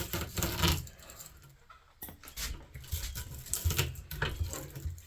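Irregular metallic clicks and scrapes of a hand tool working shellac-coated copper windings out of a ceiling fan motor, with a short lull about halfway through.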